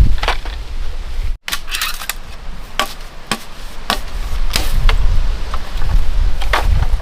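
A string of about nine sharp knocks or chopping strikes at uneven intervals, over a steady low rumble.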